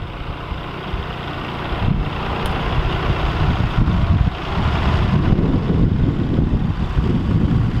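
Red compact tractor with a front-end loader driving up, its engine running steadily and getting louder over the first few seconds as it approaches.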